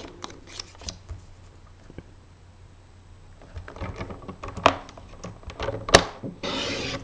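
Cardstock and craft tools handled on a desk: light taps and clicks, two sharper knocks about five and six seconds in, then a half-second swish near the end as a blade cuts along the paper to trim a strip by 2 mm.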